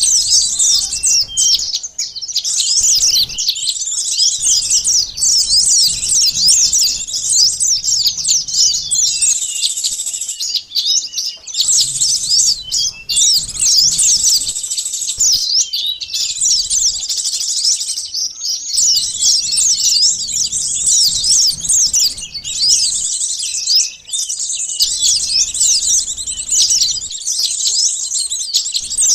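Bird-lure recording of a noisy flock of small songbirds, sunbirds among them, calling all at once. The dense, rapid high-pitched chirps and trills overlap with brief breaks every few seconds.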